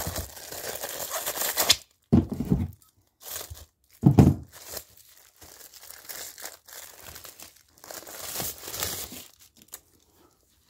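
Plastic comic book bag crinkling and rustling as it is handled and unwrapped, with two short dull bumps about two and four seconds in.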